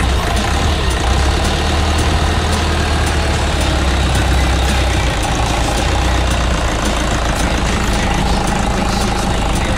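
Mitsubishi 4D34 four-cylinder diesel engine of a Canter FE truck running, heard close up in the open engine bay; its low rumble is heavier for the first few seconds and again near the end.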